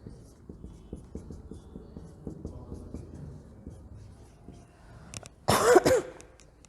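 A person coughing, a short loud cough in two quick parts about five and a half seconds in, after a few seconds of soft, irregular tapping and clicking.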